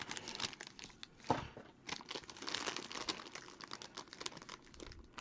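Silver foil-wrapped trading card packs crinkling as hands slide them out of their box and sort them, a run of irregular rustles and crackles.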